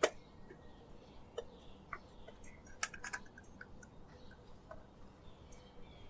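Irregular light clicks and taps of small hard objects being handled, spread unevenly, with a couple of sharper clicks about three seconds in.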